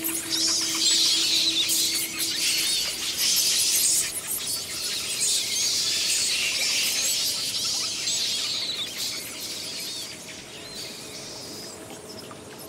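A dense chorus of many birds chirping, fading gradually toward the end. The last held note of the background music dies away in the first few seconds.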